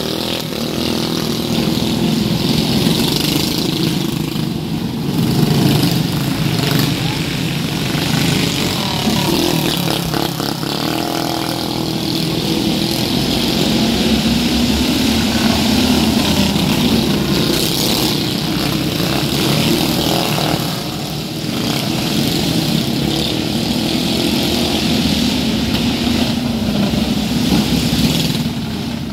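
Small engines of several racing vehicles lapping a track, a steady running drone whose pitch and loudness swell and fade as the vehicles come past and draw away.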